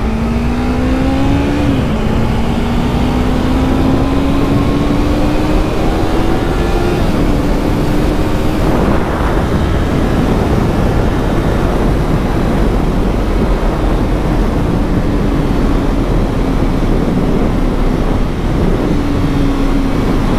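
Yamaha MT-03 parallel-twin engine accelerating on the road: the engine note climbs, drops at an upshift about two seconds in, climbs again for several seconds, then settles into a steady cruise. Wind rushes over the microphone throughout.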